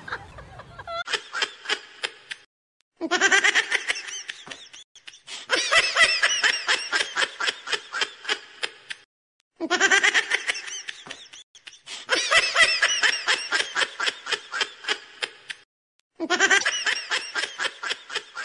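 High-pitched, fast-pulsing laughter in about six bouts, each broken off by a short dead-silent gap: a laugh track cut in over the footage.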